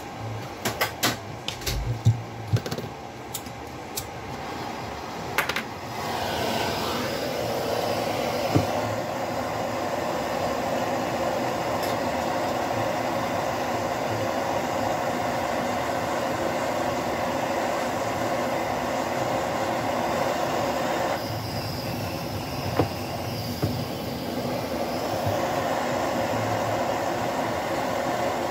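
A few clicks and knocks, then about six seconds in a handheld gas torch starts burning with a steady hissing flame. It is heating the soldered seam of the gyroscope's metal housing to melt the solder.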